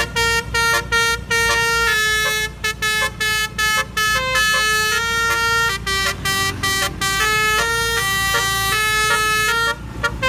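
Truck telolet horn playing a tune: loud air-horn notes in quick succession, stepping up and down in pitch with short breaks between them, over a steady low rumble.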